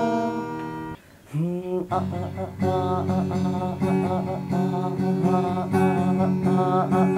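Acoustic guitar strummed in steady chords while a man sings a long, drawn-out note; the sound drops away briefly about a second in, then the strumming and voice come back in.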